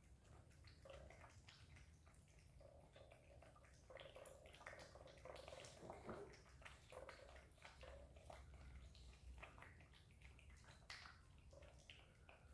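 Two cats eating from bowls: faint, irregular lapping and chewing clicks, many in quick succession, over a low steady hum.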